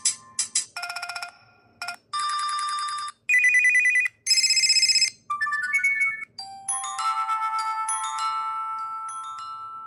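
HTC phone ringtones and notification tones playing one after another: short electronic trills and beeps, a quick run of tones, then a chime that rings on and slowly fades.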